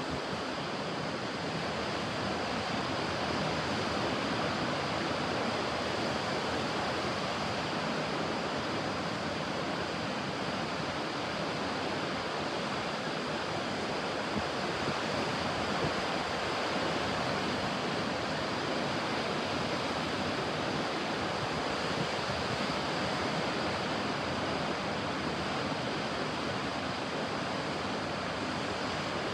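Ocean surf washing onto a beach: a continuous, steady rush of breaking waves.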